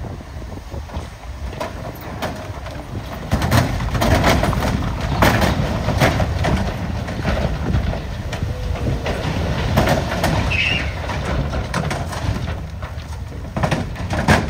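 Dump truck's diesel engine running while its raised bed tips out a load of rocks and dirt, which slide off and clatter onto the pile, growing louder about three and a half seconds in.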